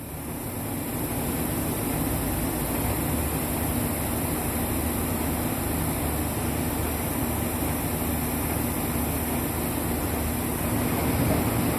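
Cabin sound of a 2005 Isuzu Erga KL-LV834L1 city bus under way: a steady mix of engine and road noise, with a faint steady hum.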